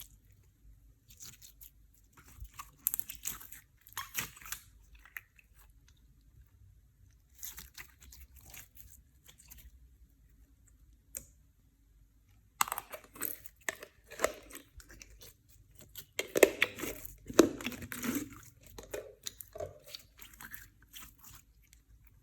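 Clear slime being kneaded and squeezed by hand, giving bursts of crackling and sticky squishing. The sound comes in short clusters at first, then turns denser and louder about halfway through.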